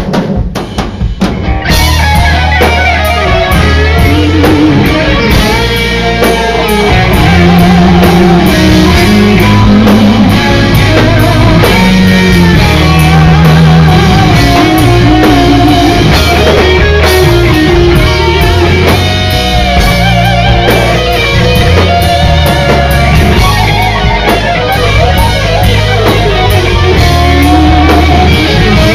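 Live rock band playing: lead electric guitar melody over bass and drum kit. The full band comes in about two seconds in after a quieter opening.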